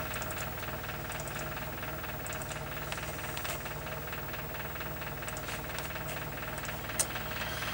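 Steady electrical hum and whir of running electronic equipment, with a faint click near the end.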